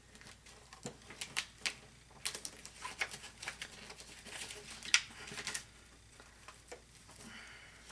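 Clear plastic sheet and paper being handled and pressed down by fingers on a tabletop: a run of small crinkles and clicks, thickest between about one and six seconds in, with the sharpest click around five seconds.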